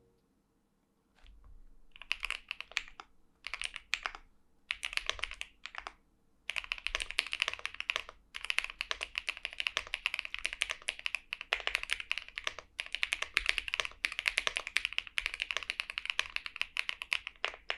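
Typing on an Epomaker P87 aluminum-cased mechanical keyboard with Wisteria linear switches and doubleshot PBT keycaps. Short bursts of keystrokes come first, then fast, nearly continuous typing from about six seconds in, broken by a couple of brief pauses.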